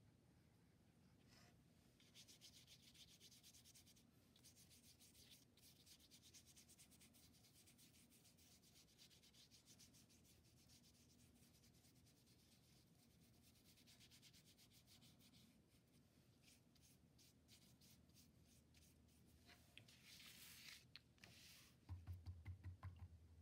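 Faint quick scratching of a paintbrush scrubbing paint onto paper in rapid repeated strokes, pausing briefly and going quieter past the middle. Near the end, a short scratchy flurry and then a few soft low knocks.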